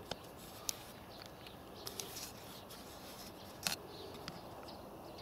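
Quiet background with a few scattered faint clicks and taps, the sharpest a little past halfway.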